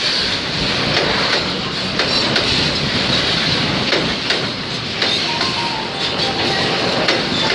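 Container freight train's loaded flat wagons rolling past close by: a steady rumble and clatter of steel wheels on the rails.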